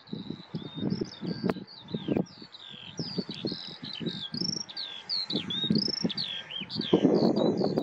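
Small songbirds chirping and singing in a busy, continuous stream of short high sweeping notes. Wind buffets the microphone in irregular low rumbling gusts, strongest near the end.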